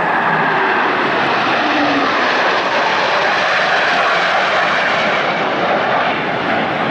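Jet engine noise from a formation of Navy F/A-18 fighter jets flying past, a loud, steady roar of noise without breaks.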